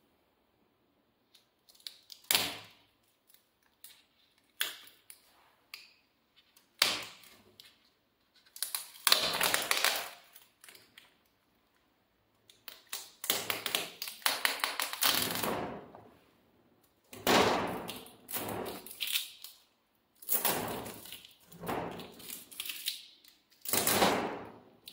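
A paper stencil being peeled off window glass and handled, rustling and crackling in about a dozen irregular bursts of half a second to two seconds each.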